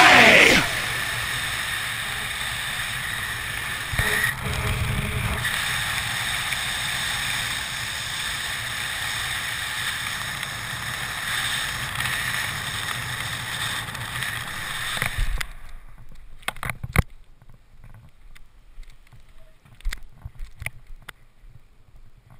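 Wind rushing over a GoPro's microphone as a skydiver flies down under an open parachute canopy, a steady noise that stops abruptly about fifteen seconds in as the parachutist touches down. After that come scattered knocks and rustles from the landing on grass and the collapsing parachute.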